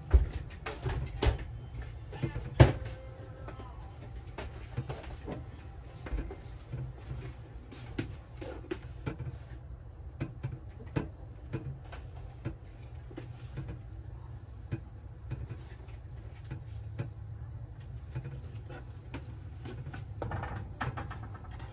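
Scattered clatter of kitchen work: irregular knocks and clicks of cookware and utensils, the sharpest few in the first three seconds, over a steady low hum.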